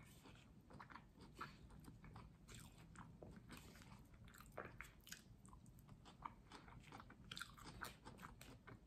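Faint, close-up chewing and crunching of crisp food, a quick run of irregular small crackles with no speech.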